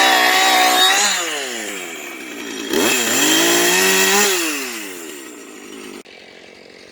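Husqvarna chainsaw cutting into a felled pine, revving up under load and dropping back twice, then easing off toward idle. The sound cuts off abruptly about six seconds in.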